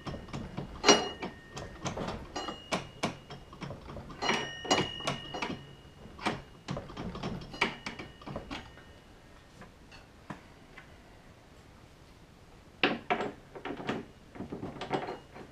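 Metal tools clinking and scraping on a snowmobile disc-brake caliper as its pistons are spread back for new pads. There are many sharp clinks, some ringing briefly, then a quieter pause about ten seconds in, and a few more clicks near the end.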